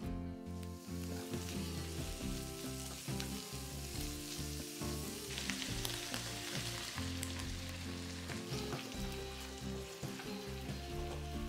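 Cabbage and tuna sizzling in a hot nonstick frying pan while being stirred with a silicone spatula. About halfway through, a ladle of pasta cooking water hits the pan and the sizzle flares up for a second or so, then settles back to a steady frying hiss.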